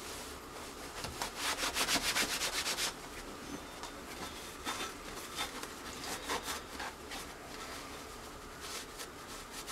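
Wiping and rubbing a metal plate by hand to degrease it with isopropyl alcohol. A quick run of back-and-forth strokes comes about a second in, followed by slower, scattered wipes.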